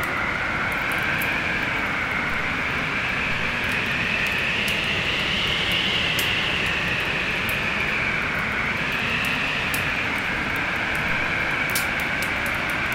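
Stormy winter wind blowing steadily, with a whistle that slowly rises and falls in pitch, over the scattered sharp crackles of a wood fire in a fireplace.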